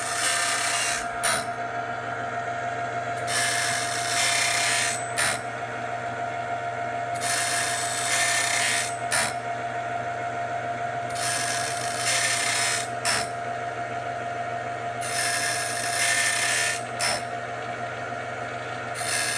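Automatic sawmill band blade sharpener running through its cycle: a steady motor hum, with a high grinding hiss about two seconds long as the wheel passes each tooth, and a click as the blade indexes, repeating about every four seconds.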